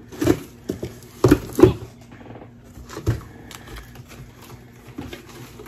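Handling noise: a few short knocks and rustles of cardboard and clothing being moved about and unpacked from a box.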